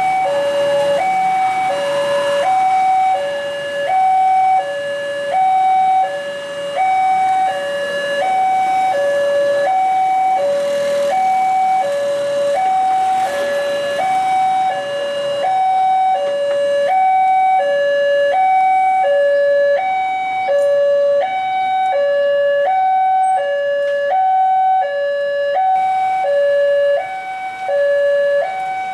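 Railway level-crossing warning alarm sounding: an electronic two-tone signal, high and low tones taking turns about every half second in an even, unbroken cycle. It is the warning that a train is approaching and the crossing is closed.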